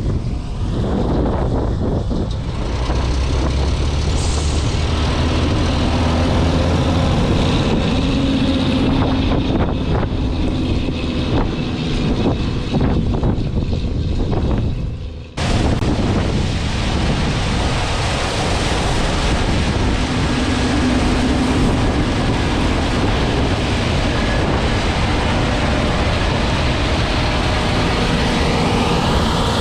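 Heavy farm machinery engines running steadily, with wind noise on the microphone. The sound drops out suddenly about halfway through and comes straight back.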